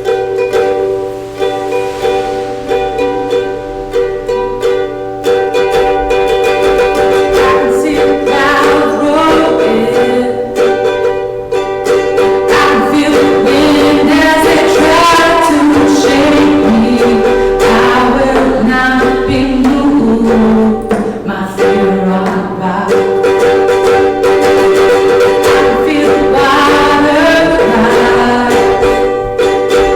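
Live worship song: strummed string chords over held notes, with a voice singing the melody from about eight seconds in.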